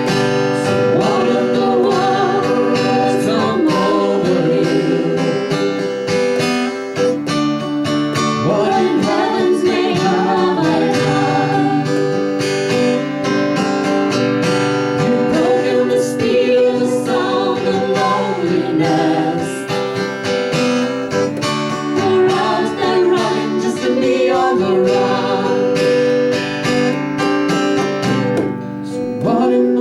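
Acoustic guitar strumming a folk song, with a melody line sung or played over it and no words made out.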